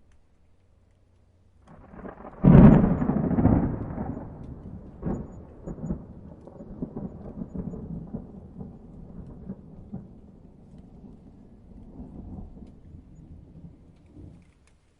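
A thunderclap. After a quiet start, a rumble builds and breaks into a sharp, loud crack about two and a half seconds in. It then rolls on with smaller crackles, fading out shortly before the end.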